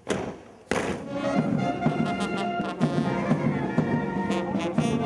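Two heavy thumps about half a second apart, then military band music with brass and bagpipes playing sustained notes.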